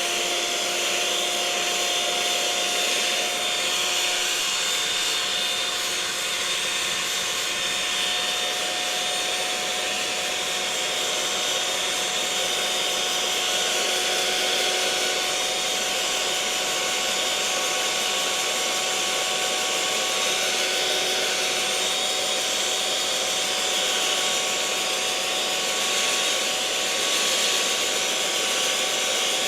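Electric mixer running steadily at one speed: an even motor whir with a few steady whining tones over a hiss, without pauses or changes in speed.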